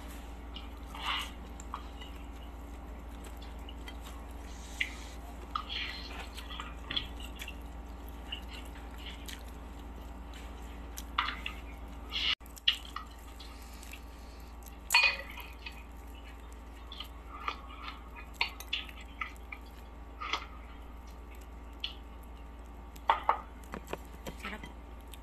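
Close-up eating sounds of crispy fried chicken: scattered crunches and wet mouth clicks from biting and chewing, over a steady low hum.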